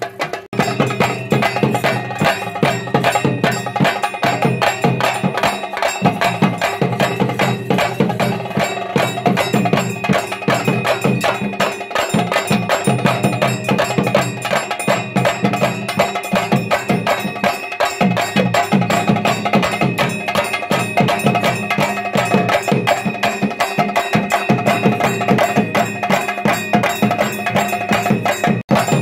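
Theyyam percussion ensemble playing fast, continuous drumming with steady ringing metallic tones over the beat. It breaks off for an instant just before the end.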